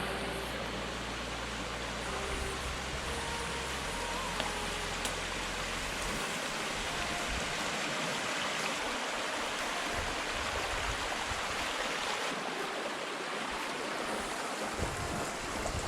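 Steady rush of running water, as at a flooded stream crossing on the trail.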